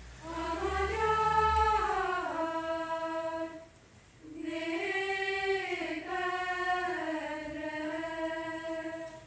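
Chamber choir singing a cappella in held chords: one phrase, a brief breath pause about three and a half seconds in, then a longer sustained phrase.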